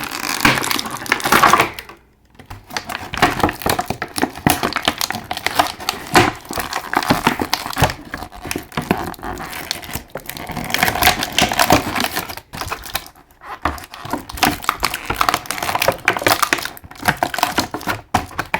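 Stiff plastic packaging crinkling, crackling and clicking as an action figure and its accessories are worked out of the plastic tray, a dense run of small clicks and taps with a couple of short pauses.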